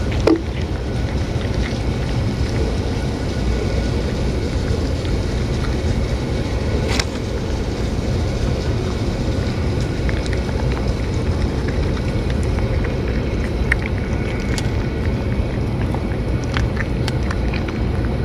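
Cats eating wet food from a metal dish close up: faint, scattered chewing and licking clicks over a steady low rumble of outdoor background noise.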